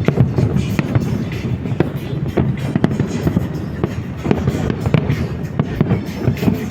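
Fireworks going off in repeated sharp bangs and crackles, over music.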